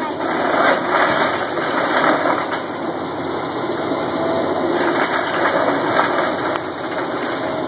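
Caterpillar hydraulic excavator's diesel engine running under load as its bucket presses into a house wall, with wood and debris crunching and a few sharp cracks and knocks.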